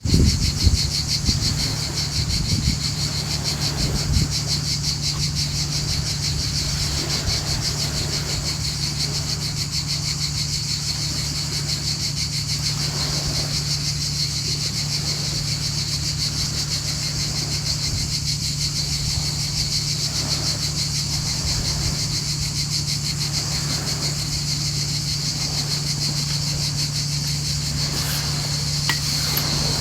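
Sea waves washing in every few seconds, under a steady high-pitched buzz and a constant low hum.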